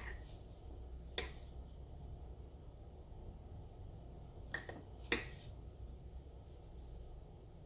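A metal spoon clinking against a ceramic cup four times, short sharp taps spaced unevenly, the loudest about five seconds in, as milk foam is spooned into the cup.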